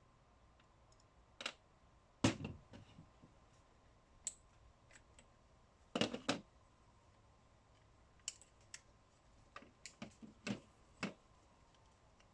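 Scattered clicks and knocks of small plastic trimmer parts and tools being handled, irregular and light, with louder knocks about two seconds and six seconds in.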